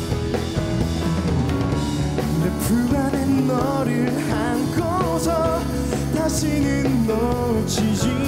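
Live band playing a Korean song: a male singer's voice over electric guitar, bass, drum kit and keyboard. The singing comes in about two and a half seconds in, after a short instrumental passage.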